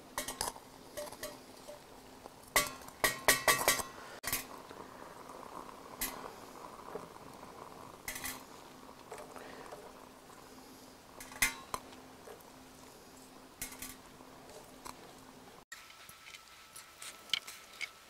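Sharp metallic clinks and knocks, coming in small clusters with the loudest run about three seconds in, as sticks are fed into a small stainless-steel wood-burning stove.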